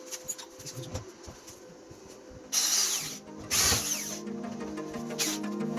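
Light clicks and taps of steel lock parts being handled, then two short loud bursts of noise about a second apart, as background music comes in.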